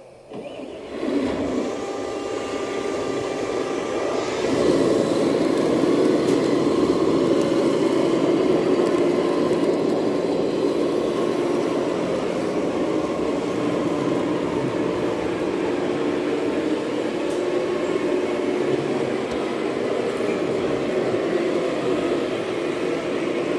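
Steady mechanical din of radio-controlled model trucks and construction machines running, with a few faint whining tones in it. It comes in about a second in and grows louder at about four seconds, then holds.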